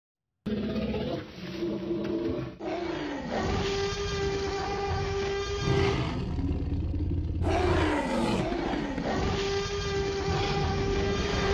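Dinosaur roar sound effects in the style of a film T. rex: long, loud roars with falling sweeps in pitch and a held steady tone, starting about half a second in after a moment of silence.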